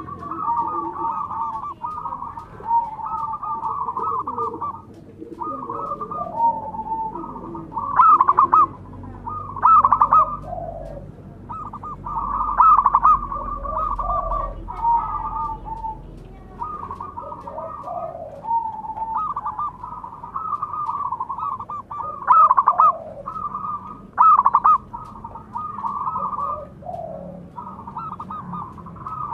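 Zebra dove (perkutut) cooing: rolling, trilled coo phrases repeated one after another with barely a pause, a few notes louder than the rest.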